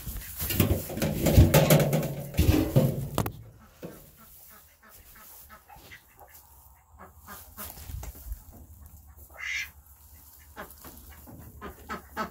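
Ducks quacking over the first three seconds, then scattered rustles and knocks from the phone rubbing against a sweatshirt.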